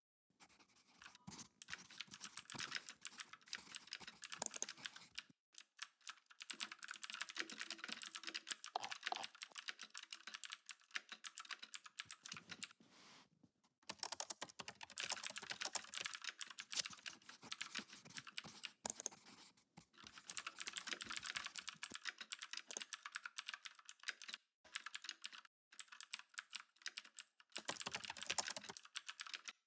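Typing on a computer keyboard: rapid runs of key clicks in bursts, broken by brief pauses about every few seconds.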